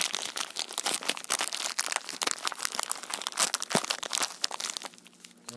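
Plastic parts bag crinkling and crackling as it is handled to get a model-kit tyre out, a rapid run of small clicks that dies away near the end.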